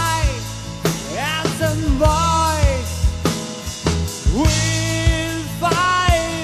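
Rock song: a drum-kit beat with a bass line under a sung melody of notes that slide up and are held.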